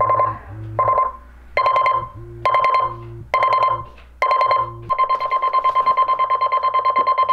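LIELONGREN digital alarm clock sounding its alarm: loud electronic beeps about once a second that switch to rapid, continuous beeping about five seconds in, then stop abruptly when a button is pressed. Under the beeps is a low pulsing buzz from the vibrating bed-shaker pod.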